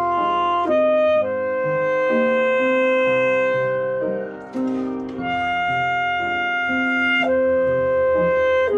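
Alto saxophone playing a slow, smooth melody in long held notes over piano accompaniment, with a short gap in the saxophone line about halfway through.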